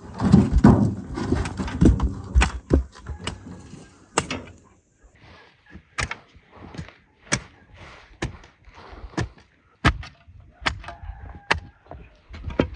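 A shovel digging into grassy soil: dense scraping and thuds of the blade in the first few seconds, then separate sharp strikes about once a second.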